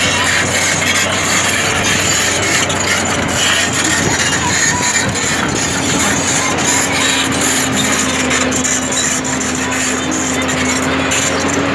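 JCB tracked excavator's diesel engine and hydraulics running steadily under load, with a hum that rises slightly in pitch about halfway through.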